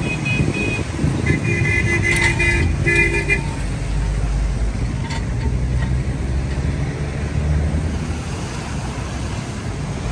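Vehicle horns honking in street traffic: a short beep at the start, then three honks in a row from about a second in, over a steady low rumble of traffic.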